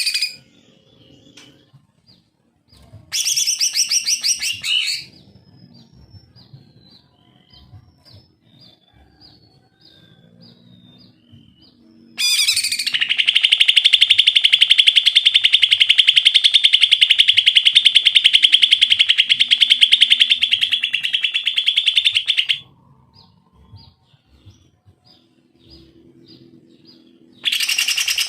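Cucak ijo (green leafbird) singing. A short burst of rapid notes comes about three seconds in, then faint scattered chirps, then a long fast rattling trill lasting about ten seconds. Another burst begins near the end.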